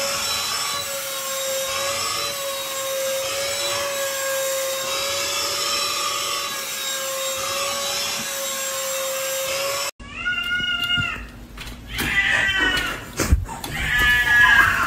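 Handheld cordless vacuum cleaner running steadily with a constant motor whine. It cuts off abruptly about ten seconds in, and a cat meows three times, with a few sharp clicks and knocks among the calls.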